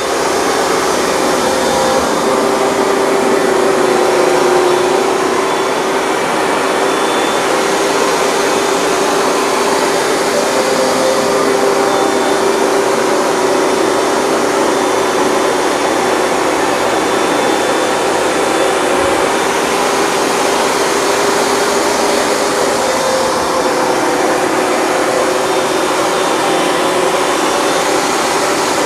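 Hoover Dual Power Max upright carpet cleaner running steadily while cleaning a rug: the even rush of its suction motor, with a steady hum.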